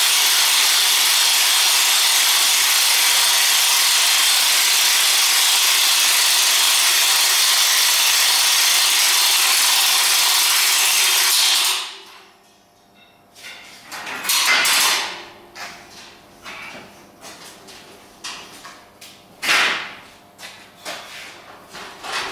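A loud, steady hiss for about the first twelve seconds that cuts off suddenly. After it come scattered knocks and metal clanks as a steel folding table frame is folded together.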